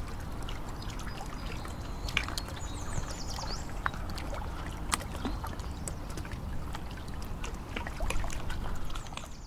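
Shallow water trickling over rocks, a steady wash broken by many small, sharp drips and splashes.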